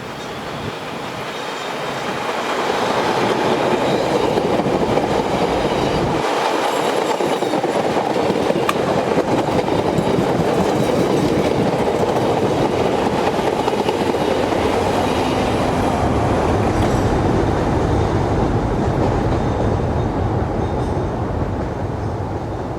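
A train passing close by, its wheels running on the rails. It builds over the first few seconds, holds steady for a long stretch, then fades near the end.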